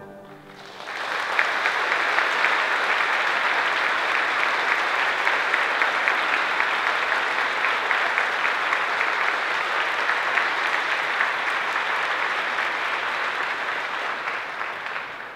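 The last brass chord dies away, then about a second in a church audience breaks into steady applause, which fades out near the end.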